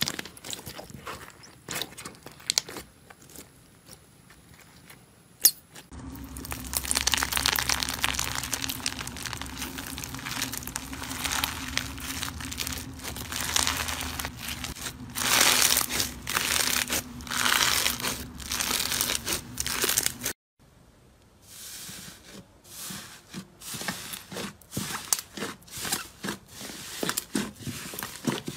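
Hands squeezing and kneading slime, making crinkling, crackling clicks. For the first few seconds, glossy blue slime with cubes in it gives scattered clicks. Then white bubbly slime crackles densely and louder over a steady low hum for about fourteen seconds and cuts off suddenly. After that, brown slime kneaded in a glass bowl gives sharper separate crackles and pops.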